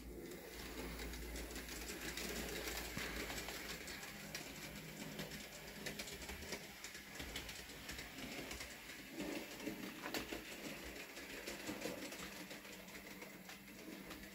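Bachmann Peter Sam model locomotive running along its track, pulling its wagons: a steady hum from the small electric motor, with scattered light clicks from the wheels over the rail joints.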